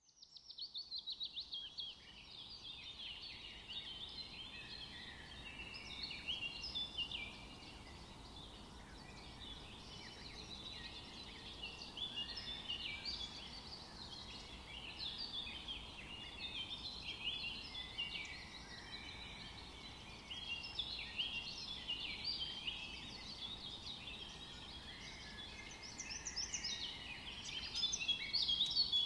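A chorus of many small birds chirping and twittering all at once, a dense, unbroken chatter of short quick notes that grows a little louder near the end.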